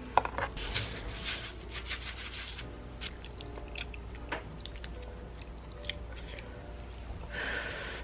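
A metal fork clicking and scraping against a ceramic bowl as rice and eggplant are scooped up, with chewing sounds and faint music underneath.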